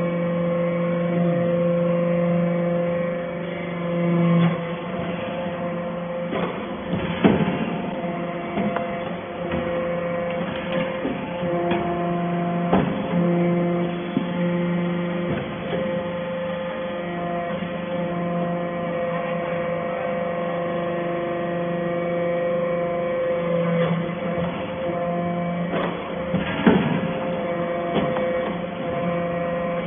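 Hydraulic metal-shavings baler running: its motor and hydraulic pump give a steady hum that swells and dips in strength. A few sharp knocks come through, the loudest about seven seconds in and again near the end.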